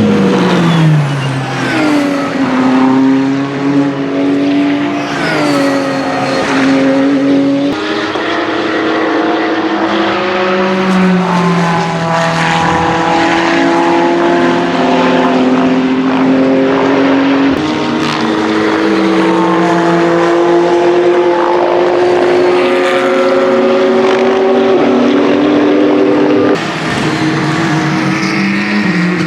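Ferrari 488 GT3 EVO race car's twin-turbo V8 on track, its pitch climbing through the gears under acceleration and falling on downshifts. The sound breaks off abruptly three times.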